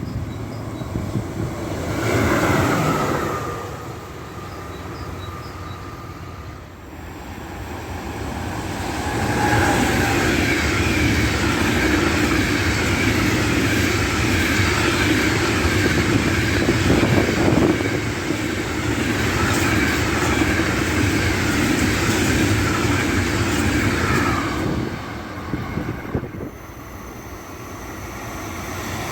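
A train running past on the line: the rail noise builds from about eight seconds in, holds steady and loud for some fifteen seconds, then drops away near the end. A shorter sound with a falling tone comes a couple of seconds in.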